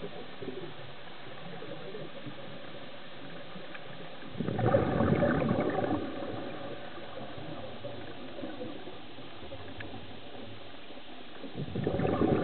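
Underwater, a scuba diver's exhaled bubbles burbling out of the regulator: one burst lasting about a second and a half near the middle and another starting near the end, over a steady hiss of the water.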